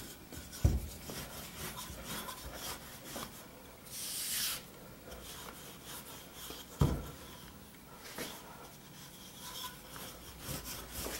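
Wooden rolling pin rolling puff pastry dough forward and back on a floured wooden board: a faint rubbing, with two soft thumps, one just after the start and one past the middle.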